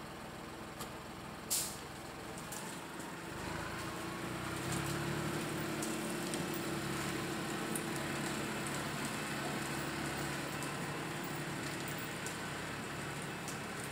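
Valtra A93 forestry tractor's diesel engine approaching, growing louder from about three and a half seconds in and then running steadily with a faint whine. A short sharp click about a second and a half in.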